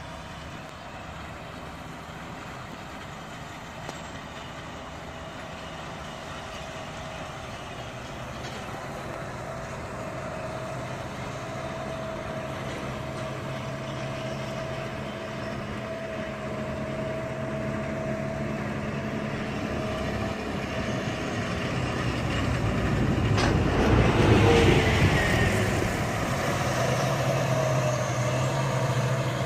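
Tractor engine running under load while pulling a round baler through rice straw, with a steady whine over the engine drone; it grows steadily louder as the rig approaches and is loudest about three-quarters of the way in as it passes close.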